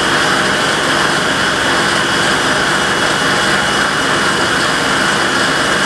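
Table saw running at speed, its blade spinning free between shoulder cuts on a crosscut sled, making a loud, steady, even noise.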